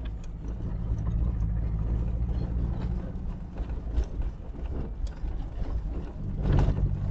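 Air-cooled flat-four engine of a 1976 VW Kombi running steadily at low speed on a rough dirt track, with scattered knocks and rattles over the bumps. A louder burst comes about six and a half seconds in.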